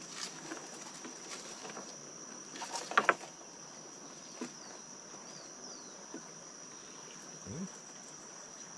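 Steady high-pitched drone of insects, with a sharp double knock about three seconds in and a few lighter clicks.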